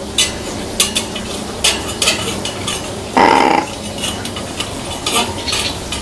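Pet crow in a wire cage: sharp metallic clicks and clinks against the cage wire, with one harsh caw lasting about half a second a little after three seconds in.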